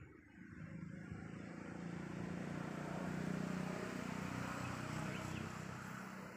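A motor vehicle driving past: a low engine hum and road noise that swell up, are loudest about three seconds in, then fade away.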